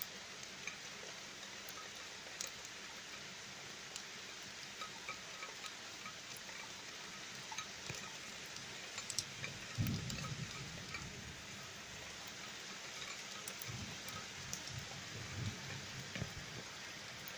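Steady rain falling during a thunderstorm, with scattered sharp ticks of single drops. A low rumble comes about ten seconds in and again near the end.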